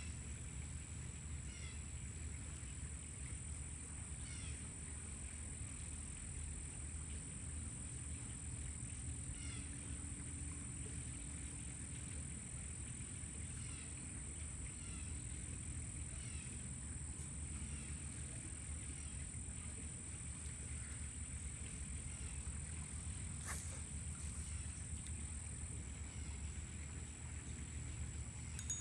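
Outdoor ambience: a bird gives short, falling chirps every few seconds over a steady high-pitched drone and a low rumble. There is one sharp click about 23 seconds in.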